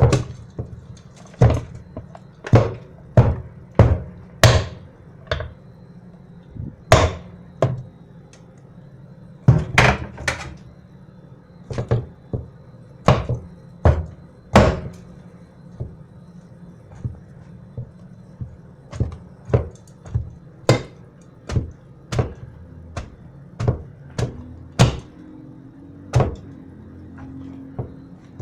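A long series of sharp thunks and knocks, irregular and roughly one a second, as boxes of dry pasta are put into the dish.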